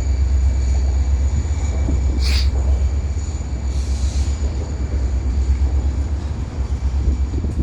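Kansas City Southern local freight train passing close by, with a steady heavy low rumble. A faint high steady whine fades out in the first few seconds. There is a sharp click about two seconds in and a brief hiss about four seconds in.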